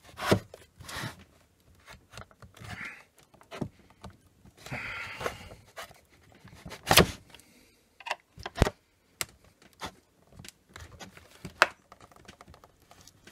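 A flat screwdriver prying and scraping along the sealed seam of a plastic eBike battery case, with scattered clicks and knocks as the blade works under the plastic. The loudest is a sharp crack about seven seconds in.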